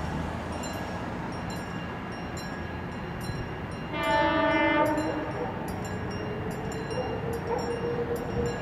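MLW diesel locomotive approaching with a low engine rumble, sounding one horn blast about four seconds in that lasts about a second. A level-crossing warning bell rings in quick, regular strokes throughout.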